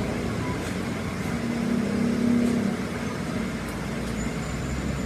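Steady low mechanical hum with a swell about two seconds in.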